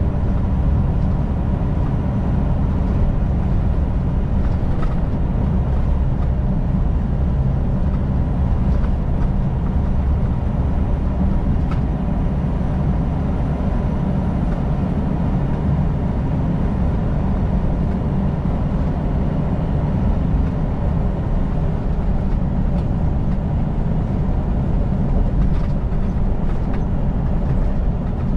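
Semi truck's diesel engine and tyre noise while driving at a steady speed, heard from inside the cab: a steady low drone with no changes in pitch or level.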